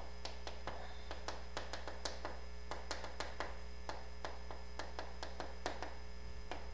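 Pen tip tapping and clicking on an electronic whiteboard screen during handwriting, irregular clicks a few times a second, over a steady electrical hum.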